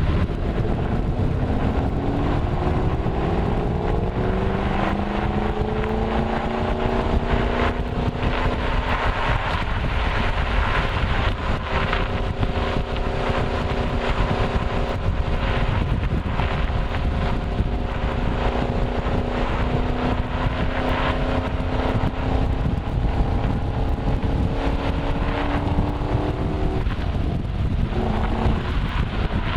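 Ford Mustang Shelby GT500's supercharged V8 driving under load, with road noise. Its pitch drops about two seconds in, as at an upshift, then rises slowly and steadily for over twenty seconds before falling away near the end as the throttle comes off.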